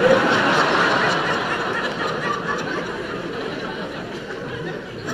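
Theatre audience laughing, loudest at the start and slowly dying down.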